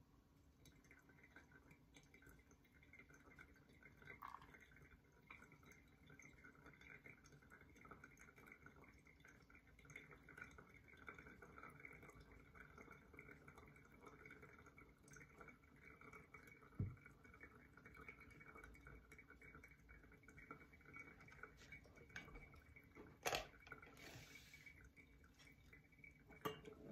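Faint trickle of a thin stream of hot water from a gooseneck kettle pouring onto coffee grounds in a paper pour-over filter. A few light knocks near the end.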